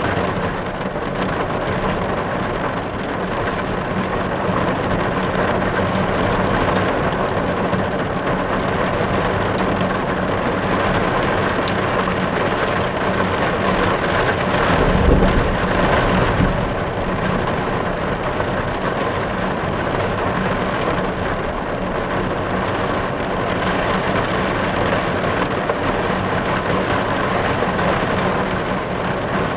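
Steady rain falling on a car's roof and glass, heard from inside the car, with a brief low swell about halfway through.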